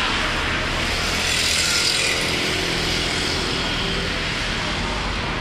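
Hot oil sizzling in a large wok as battered champedak and durian pieces deep-fry. The hiss swells about two seconds in, over a steady low rumble.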